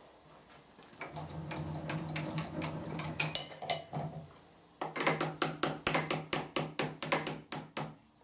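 Small hammer tapping a steel pin into a reamed hole in a part held in a machine vise: a quick, even run of sharp metal taps, about five a second, starting a little past halfway. Before that, light clicks and rattles of small steel parts being handled.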